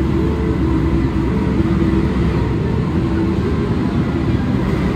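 CC206 diesel-electric locomotive running with a steady low rumble as it draws a passenger train slowly into the platform.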